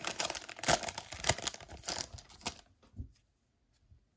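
A 2007-08 Upper Deck Series 2 hockey card pack wrapper being torn open and crinkled, a dense run of crackles and rips for about two and a half seconds, then a single soft knock about three seconds in.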